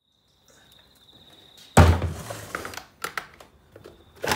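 A Stihl 036 chainsaw set down on a wooden workbench with one heavy thunk about two seconds in, followed by a few light knocks and clicks as it is handled.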